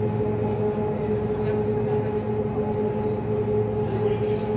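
Steady drone of an Aquabus river boat's motor heard from inside the passenger cabin: a constant low hum with a steady mid-pitched tone over it.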